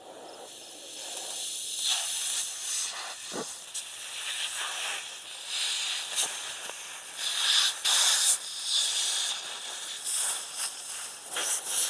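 Handheld 1200-watt fiber laser burning into a pine 2x4: a steady, loud hiss with sharp crackles and pops every second or so as the wood chars and smokes.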